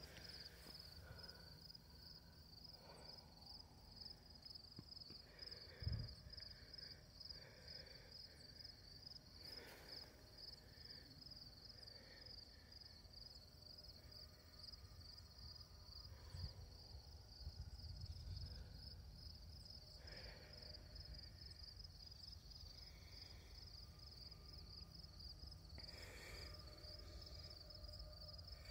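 Insects chirping in a steady, high-pitched pulsing trill, faint, over a low rumble, with one soft thump about six seconds in.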